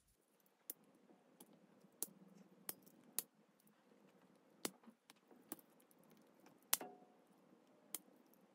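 Swiss Army knife blades and tools being opened and snapped shut: faint, sharp clicks, about ten of them at uneven intervals.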